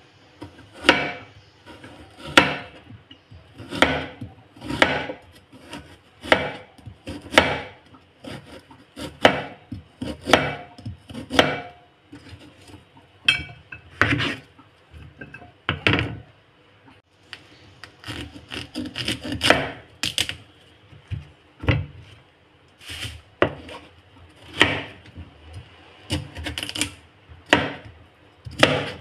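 Kitchen knife chopping carrots on a plastic cutting board, a sharp knock at each cut roughly every second, with a pause partway through. Near the end the knife cuts broccoli florets.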